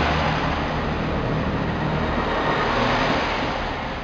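Class 165 Turbo diesel multiple unit pulling out of the station past the platform, with its underfloor diesel engines running and its wheels rumbling on the rails. The sound eases off slowly toward the end.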